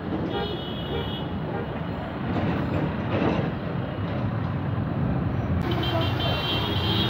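Steady street-traffic noise with a vehicle horn tooting faintly in the first second.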